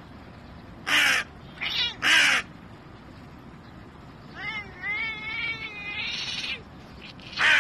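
Hooded crow cawing: three loud, harsh caws in the first two and a half seconds and another near the end, with a softer, wavering run of calls between about four and six seconds in.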